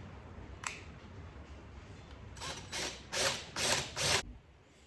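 Power drill boring a mounting hole through the motorcycle's luggage compartment shell: a low running hum, then five short harsh bursts as the bit cuts through, stopping a little after four seconds.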